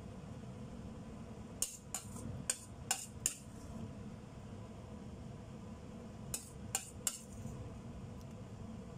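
A plastic spatula knocks and scrapes against a stainless-steel wok while stir-frying cauliflower, in short sharp clicks. There is a group of five between about one and a half and three and a half seconds in, and three more around seven seconds. Underneath runs a low steady hum.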